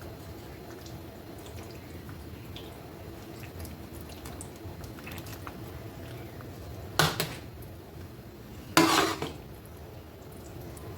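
Kitchen handling of a baking dish and utensils while layering a lasagna: faint scattered clinks and scrapes, with two short, louder noisy sounds about seven and nine seconds in.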